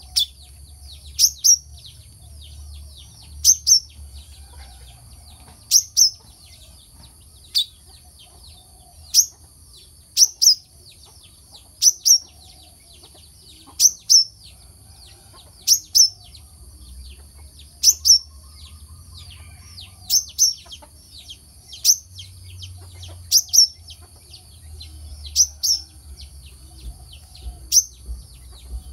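A kelicap mayang kelapa, a sunbird, calling over and over with sharp, high, downward-slurred chirps, often in quick pairs, about every two seconds. A steady high-pitched hiss runs underneath.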